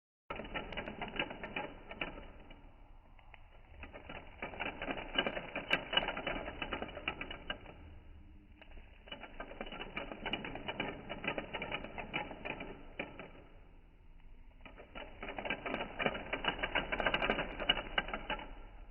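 Plastic parts of a LEGO Technic Chevrolet Corvette ZR1 model clattering in rapid, dense clicks. The clatter swells and fades in four waves.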